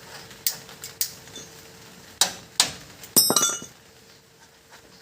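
Sharp metallic clinks and taps of metal tools or parts being handled and struck, about six in all, ending in a quick ringing cluster a little past the middle.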